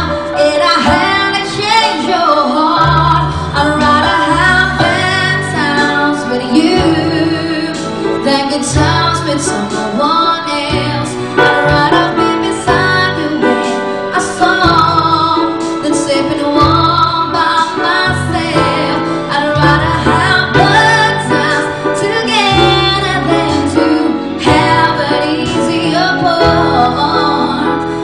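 A woman singing a song into a microphone, amplified through a PA, with electric keyboard accompaniment playing chords and a bass line.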